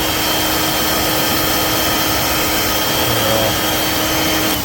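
Dirt Devil Vibe corded stick vacuum running steadily with a constant whine. It is switched off near the end and the motor spins down, its pitch falling.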